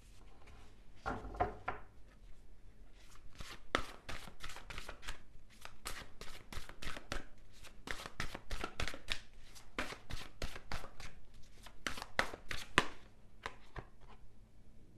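A deck of tarot cards being shuffled by hand: a rapid, irregular run of card snaps and slaps. It follows a soft handling thump about a second in and stops shortly before the end.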